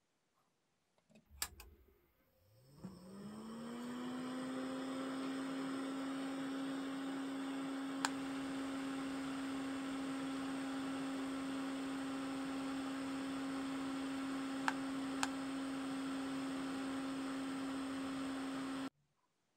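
A seven-bladed 12 V cooling fan is switched on after a couple of clicks. Its hum rises in pitch over a second or so as it spins up, then holds as a steady whir with a few light ticks, and stops abruptly near the end.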